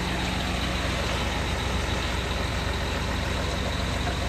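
Heavy diesel engine of earthmoving machinery running steadily, a low, even hum with no change in speed.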